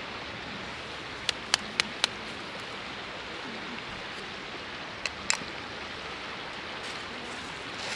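Steady rushing of a river, with a handful of sharp pops from a wood campfire: four in quick succession about a second in, and two more about five seconds in.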